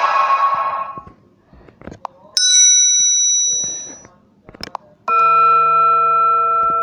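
Phone notification tones played one after another: a buzzy tone ends about a second in, then a bright bell-like chime starts sharply and rings out for about a second and a half, and a second, lower chime of several held tones begins about five seconds in. Short clicks fall in the gaps.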